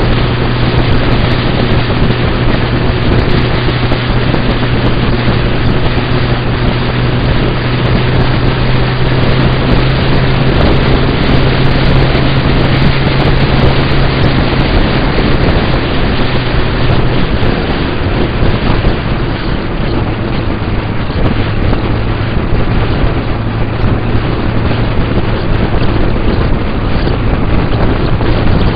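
Wind buffeting the microphone at road speed over the steady drone of a motorcycle engine cruising. The engine note eases off briefly about two-thirds of the way through, then settles again.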